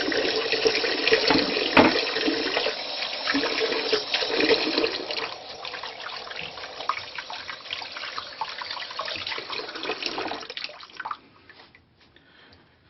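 Water running from a tap into a sink, softer after about five seconds and shut off abruptly about eleven seconds in.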